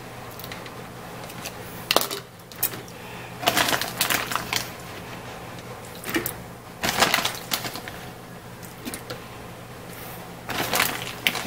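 Irregular metallic clinks and rattles from canning pots sitting on top of a running washing machine, over a steady low hum.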